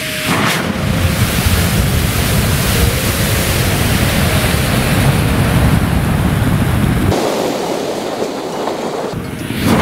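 Thousands of match heads flaring and burning together in one big fire: a loud, steady rushing roar with a deep rumble. About seven seconds in the rumble drops away and leaves a lighter hiss, and near the end a fresh burst of flaring swells up.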